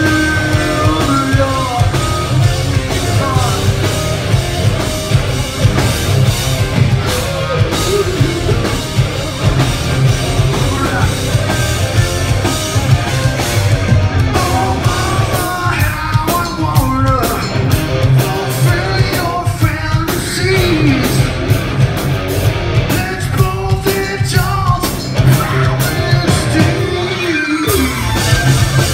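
Live rock band playing loud: electric guitars over bass guitar and drums.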